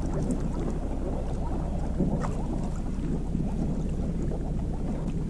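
Small boat under way on a lake: a steady low motor drone with water rushing along the hull, and wind on the microphone.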